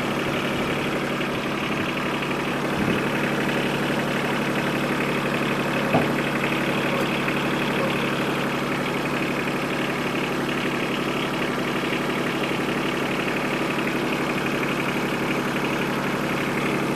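Yanmar SC2450 compact tractor's three-cylinder diesel engine running at a steady speed. A couple of short knocks sound over it, the sharper one about six seconds in.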